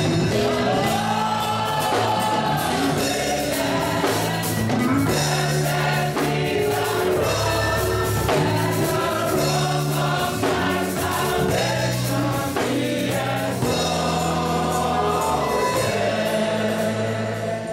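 Gospel choir singing live through microphones, with instrumental backing holding low notes under the voices.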